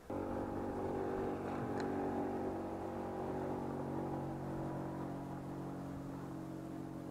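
Boat's outboard motor running steadily, a hum of even, unchanging pitch.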